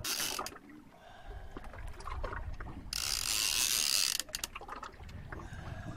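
Fishing reel's drag ratcheting as a hooked halibut pulls line off the reel. There is a short burst right at the start and a longer, loud run from about three to four seconds in.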